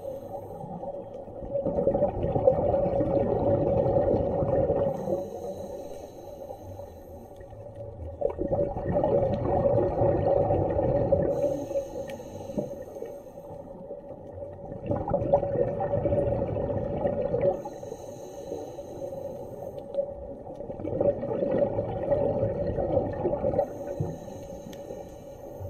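Muffled underwater sound as picked up by a camera in its waterproof housing: a low rushing noise that swells and fades about every six to seven seconds, over a steady tone.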